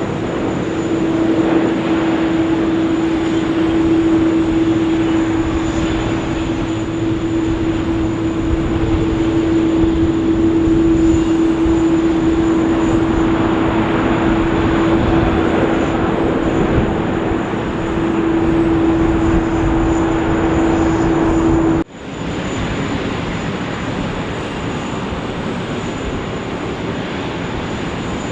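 Airbus A380 jet engines running as the airliner comes in to land: a loud, steady jet rumble with a held hum. About three quarters of the way through, the sound breaks off for an instant and the hum stops, then a similar rumble carries on.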